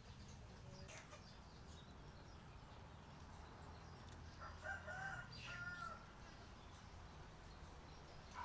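Quiet outdoor background with a distant rooster crowing once, about halfway through.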